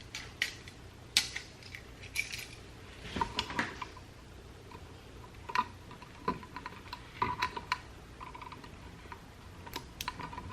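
Irregular small clicks and light metallic taps from wire ends being bent into loops around a tool for the switch's terminal screws.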